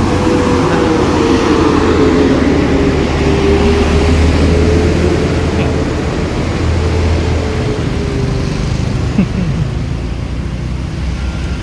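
Vehicle engines running in a slow traffic jam, a steady low hum with a droning tone that fades out about eight and a half seconds in.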